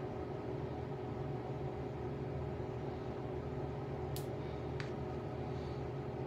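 Steady background hum and hiss with a constant low tone, and two small sharp clicks about four and five seconds in.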